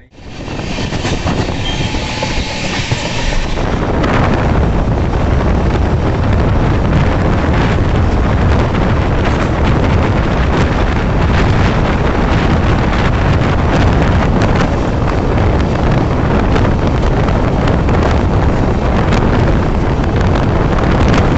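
Moving express passenger train heard from aboard: a steady loud rumble of wheels on rails with scattered clicks, plus wind noise on the microphone. It swells over the first few seconds, then holds steady.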